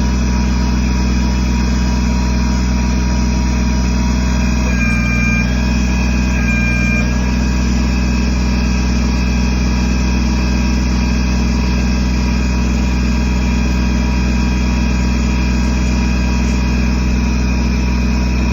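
Kubota BX23S's small three-cylinder diesel engine running steadily. Its note shifts briefly twice, about five and seven seconds in.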